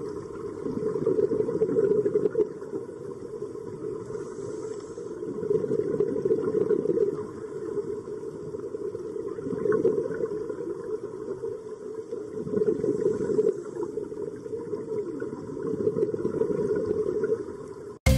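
Muffled underwater rumble that swells and fades every three to four seconds, typical of a scuba diver's regulator breathing and exhaled bubbles heard through an underwater camera.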